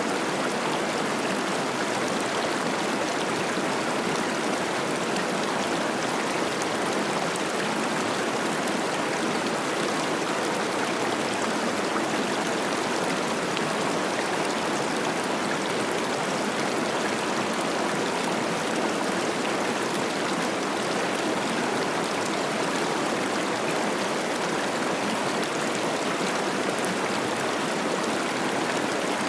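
Cache la Poudre River running high with spring snowmelt, its water rushing and babbling over rocks in a steady, unbroken wash.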